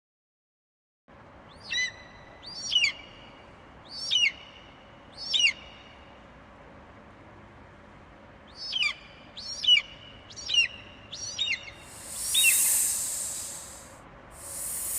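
Eagle calling: a string of short, high, falling whistled notes, four spaced about a second apart, then after a pause five more in quicker succession. A hissing rush of noise swells near the end.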